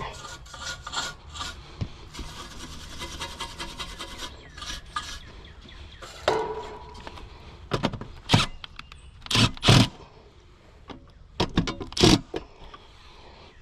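Hands working on an outdoor AC condenser unit: rapid rubbing and scraping strokes for about six seconds, then several separate knocks and clatters.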